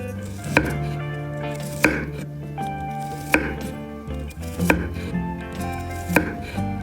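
Sharp knocks, one about every second and a half, over background music.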